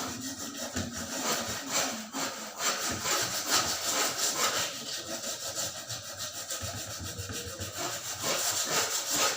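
A hand tool worked back and forth in steady, rhythmic rasping strokes, several to the second, with a short lull about two seconds in.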